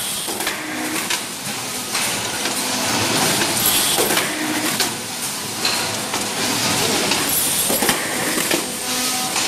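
Automatic tin can production line running: a dense, steady machine clatter with many short, irregular clicks and knocks.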